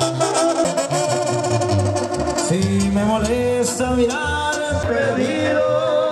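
Latin American band music with a singing voice, pitched melody lines over a steady run of bass notes.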